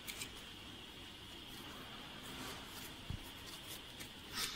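Handling noise from a plastic inkjet print head and its flat ribbon cables being turned over in the hands: a few light clicks and rustles, a soft thump about three seconds in, and a louder rustle near the end, over a steady hiss.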